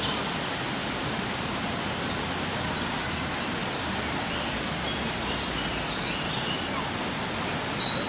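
Steady rushing of Looking Glass Falls, a waterfall, with a few faint bird chirps over it, the last ones a little louder right at the end.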